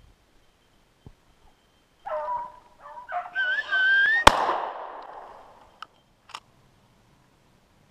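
Hounds baying for about two seconds, then a single shotgun shot about four seconds in, the loudest sound, ringing out and fading. Two short sharp clicks follow.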